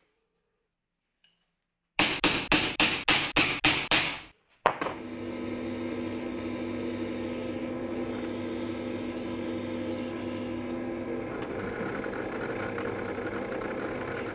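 A hammer taps a centre punch about eight times in quick succession, marking hole positions on a metal plate. A second later a drill press starts with a knock and runs steadily, its bit drilling through the plate.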